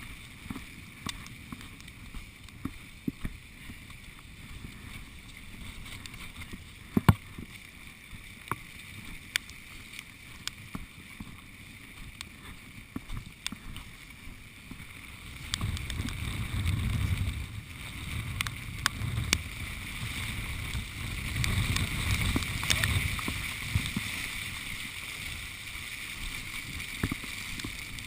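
Strong wind buffeting the microphone, gusting harder from about halfway through, with scattered sharp ticks throughout.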